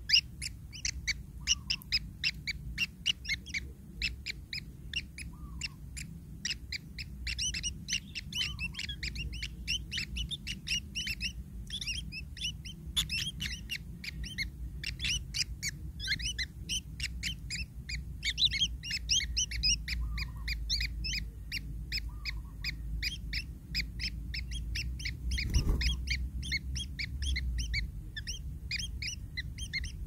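Kingfisher nestlings calling in a rapid, continuous stream of short, high chirps, with a few lower calls among them. A low rumble runs underneath, and there is a dull thump late on.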